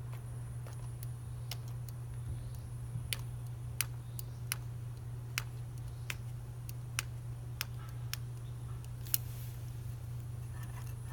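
Light, sharp clicks, irregular, about one or two a second, from fingers and fingernails pressing a turn signal's rubber grommet into its mount, over a steady low hum.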